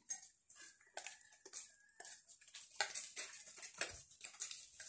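Eating snails cooked in coconut milk: short sucking and smacking noises and snail shells and utensils clicking on plates and a metal bowl, in quick irregular succession.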